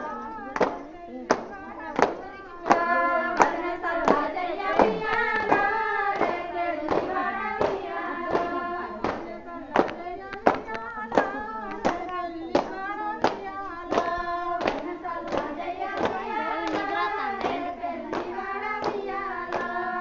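A group of women singing a Bathukamma folk song while clapping their hands together in a steady beat, about three claps every two seconds.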